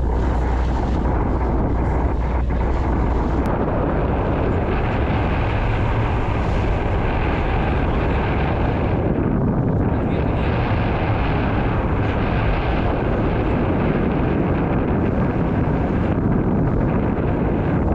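Steady noise of a motor yacht under way: its engine running, water rushing past the hull and wind buffeting the microphone.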